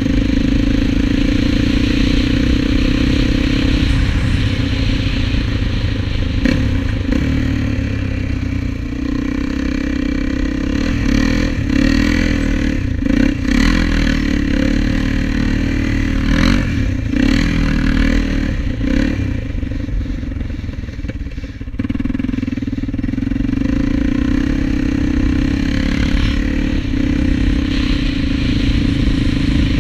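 Honda TRX400EX quad's single-cylinder four-stroke engine running under way. It is steady at first, then rises and falls with the throttle through the middle, with knocks and clatter as the quad plows through snow. The engine dips briefly about two-thirds of the way in, then settles back to a steady run.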